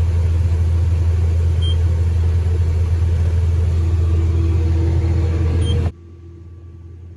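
Combine running while unloading dry corn into a grain trailer: a loud, steady low rumble with a hiss of pouring grain over it. It cuts off suddenly about six seconds in, leaving a faint low hum.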